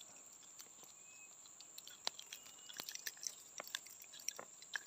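Faint, scattered clicks and ticks of a metal fish lip grip and pliers being handled while a hook is worked out of a snakehead's mouth.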